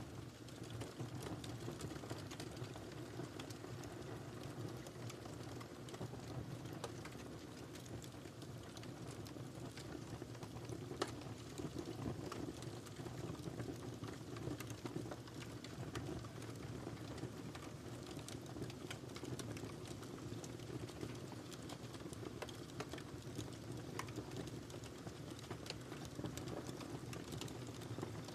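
Wood fire crackling in a fireplace: a steady low rumble of burning with many small scattered pops and one sharper pop about eleven seconds in.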